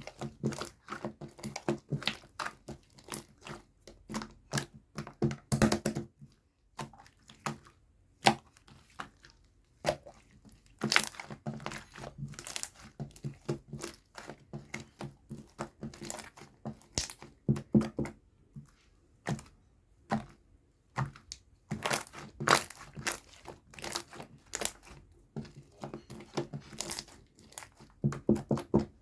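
Green slime being squeezed, stretched and pressed by hand, giving many small sharp pops and clicks in irregular runs, with a few short pauses.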